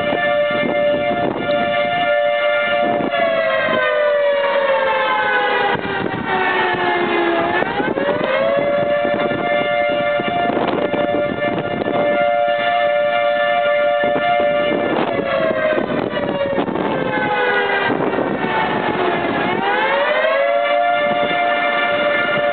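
Outdoor tornado warning siren sounding a two-note chord that holds, slides down in pitch over several seconds, then climbs quickly back, twice. Gusting wind buffets the microphone.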